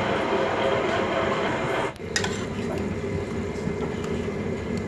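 Stovetop pressure cooker whistling, steam hissing out steadily under the whistle weight as it vents pressure; it cuts off abruptly about two seconds in. After that a quieter background with a sharp metal clink, a ladle against the steel cooker pot.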